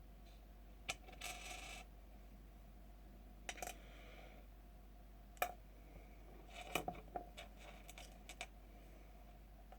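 Small hard parts and tools clicking and clinking as they are handled and fitted, with a short scrape about a second in and a cluster of clicks around seven seconds in.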